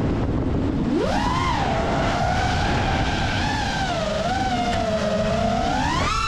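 Brushless motors and propellers of an FPV freestyle quadcopter (Ethix Stout 2306 1750 kV motors) whining, the pitch gliding with the throttle: low at the start, rising sharply about a second in, wavering through the middle and climbing steeply near the end. A steady low rumble of wind noise runs underneath.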